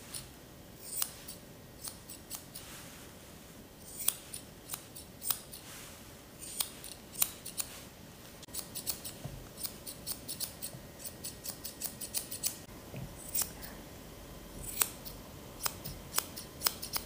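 Curved grooming shears snipping through a poodle's facial fur. The sharp snips come at an uneven pace, with a fast run of close-spaced snips in the middle.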